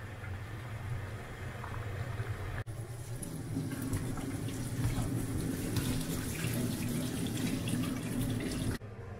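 A pan of kumquats boiling and bubbling for the first couple of seconds, then hot water and the boiled kumquats poured from the pan into a mesh strainer in a sink, the water splashing and draining.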